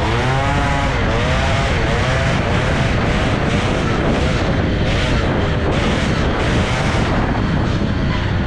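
Polini-kitted two-stroke moped engine under way, its pitch rising and falling repeatedly as the throttle is opened and eased, over a steady rushing noise.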